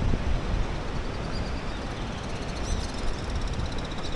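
Wind rumbling and buffeting on the microphone. About two seconds in, a faint high-pitched rapid trill joins.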